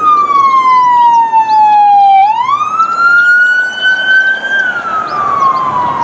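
Police car siren in wail mode, one tone gliding slowly: it falls, rises again about two seconds in, and starts falling again near the end.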